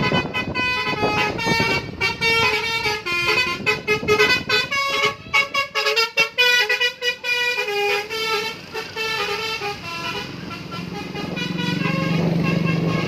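Bus 'telolet' basuri musical horn playing a tune of quick stepped notes, choppier and more staccato in the middle. Near the end a low steady hum swells in.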